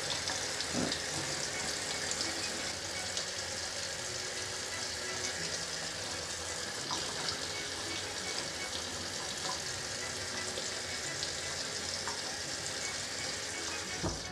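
Kitchen faucet running steadily over a headphone earpad being rinsed, the water splashing into a stainless steel sink. The water stops abruptly at the very end.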